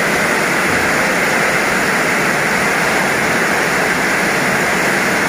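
Heavy rain falling, a loud, steady rush of noise without a break.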